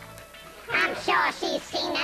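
Music with an electronically altered voice that comes in about two-thirds of a second in, after a brief lull.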